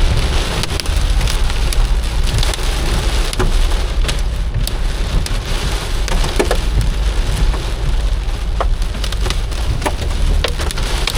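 Rain and hail hitting a moving car, heard from inside: a steady hiss with scattered sharp ticks of hailstones, over the low drone of the car on the road.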